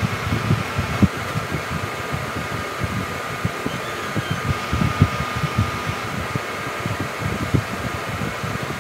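Steady hum of a room fan, with scattered soft low thumps at irregular intervals.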